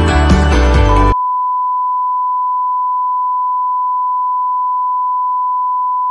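Music cuts off about a second in and is replaced by a steady, unbroken single-pitch beep: the reference test tone that goes with television colour bars.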